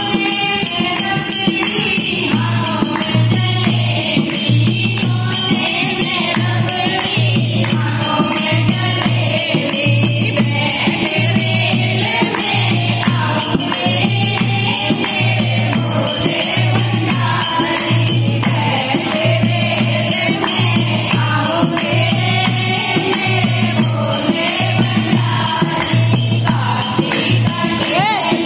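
A girl leads a Hindi devotional bhajan to Shiva into a microphone, with a group of women singing along and clapping in time over a steady low beat about once a second.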